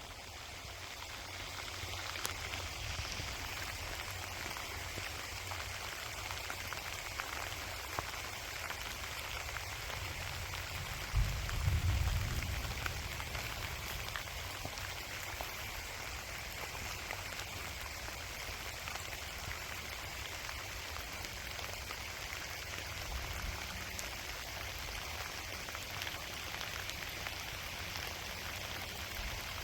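Gentle rain falling steadily, a fine even patter of drops. A brief low rumble comes about eleven seconds in.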